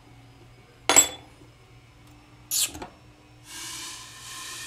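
Metal parts and tools clinking during disassembly of a quarter midget racing shock absorber: two sharp metallic clinks, about a second and two and a half seconds in, the first the louder. A steady hiss follows for over a second near the end.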